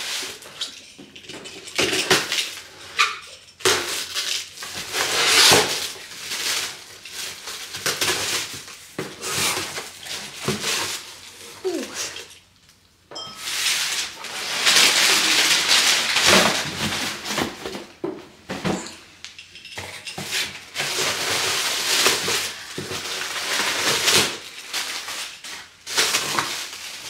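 Packaging being handled while a cardboard shipping box is unpacked: clear plastic bags and paper wrapping crinkling and rustling, with frequent knocks and clinks of the items inside.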